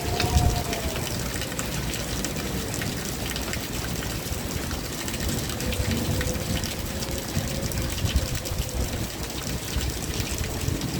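Steady rain falling, a continuous hiss with many fine drop ticks. A faint wavering hum comes and goes underneath, near the start and again from about six to nine seconds in.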